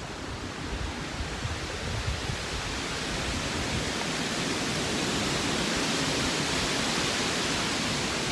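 Steady outdoor rushing noise with a flickering low rumble, swelling slightly over the first few seconds and then holding even.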